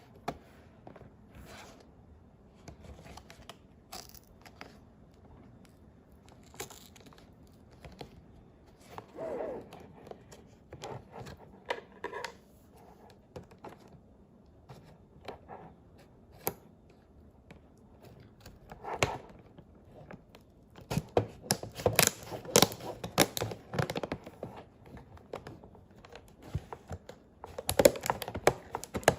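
A doll's retail packaging being opened by hand: scattered tearing, cutting, scraping and crinkling of cardboard and plastic, with occasional knocks. It comes in short separate bursts at first and grows busier and louder about two-thirds of the way through.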